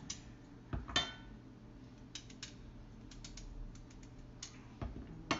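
Knife cutting rounds from a raw peeled sweet potato held in the hand over a saucepan, with slices dropping into the pan: scattered sharp clicks and knocks. A louder knock comes about a second in and another near the end.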